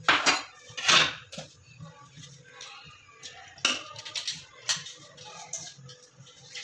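Metal utensil clinking and scraping against a cooking pot while boiled rice is layered over chicken gravy for biryani. Two loud clinks come in the first second, then softer scrapes, with sharp clinks again about three and a half and four and a half seconds in.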